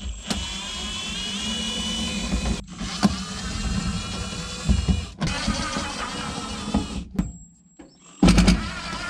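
A small electric motor whirring in several short runs with a rising whine near the start, each run broken off abruptly.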